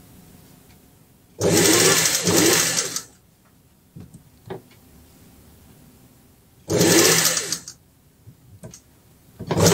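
Industrial sewing machine stitching fabric in short runs: one of nearly two seconds, a shorter one about two seconds later, and a third starting near the end, with a few light clicks between runs.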